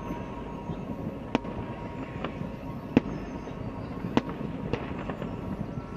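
Fireworks going off: irregular sharp bangs roughly a second apart over a steady background of noise, the loudest about three seconds in.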